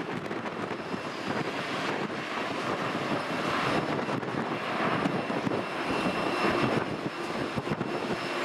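Distant jet engines of an Airbus A330-200 airliner giving a steady rumble with a faint whine as it rolls out along the runway after landing.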